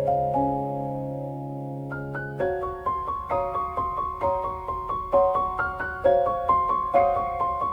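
Soft background piano music: a low chord held and fading, then from about two and a half seconds in, single notes picked out in a slow, gently repeating pattern.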